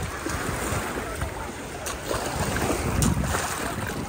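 Small lake waves washing up over a sandy shore, with wind buffeting the microphone; the wash swells louder about two and a half seconds in.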